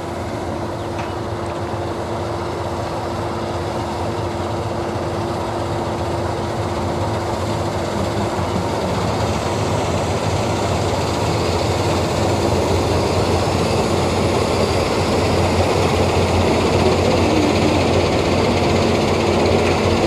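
Bakhsish 930 combine harvester running while it cuts wheat: a steady machine noise with a low hum and a held tone, growing gradually louder as the combine comes closer.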